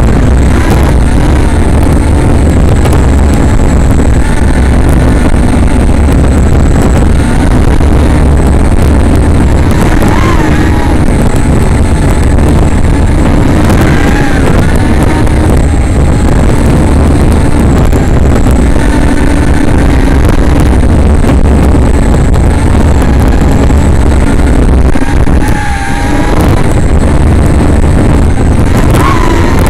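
Small 3-inch FPV racing quadcopter's brushless motors and propellers whining in flight, their pitch wavering with throttle, over heavy wind rumble on the onboard microphone. The sound dips briefly about 26 seconds in.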